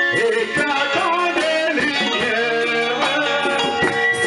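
Live church worship music: a man singing into a microphone over band accompaniment with drums and a steady beat.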